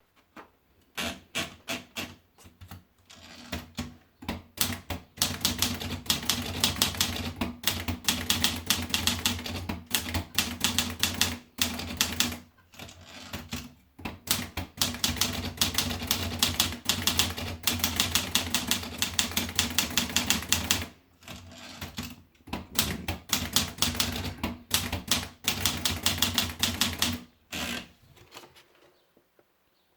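Olivetti Lettera 32 manual portable typewriter being typed on fast: rapid runs of key strikes broken by a few short pauses, stopping shortly before the end.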